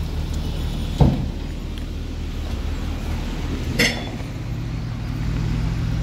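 Heavy diesel construction engine running steadily, with a heavy thump about a second in and a sharp metal clank a little before four seconds.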